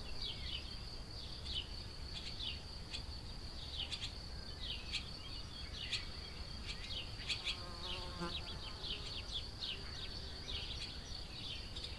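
Outdoor ambience with a steady high-pitched insect trill, typical of a singing cricket, and irregular short chirps just below it over a faint low rumble.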